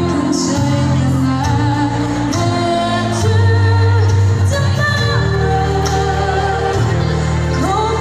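A woman singing into a microphone over backing music, holding long notes that bend in pitch above a steady bass line.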